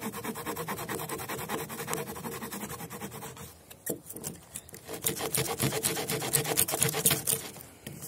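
Tiny saw blade of a Stanley multi-tool cutting through a thin wooden stick in quick, short back-and-forth strokes. The strokes pause briefly about midway, come back louder, and stop shortly before the end.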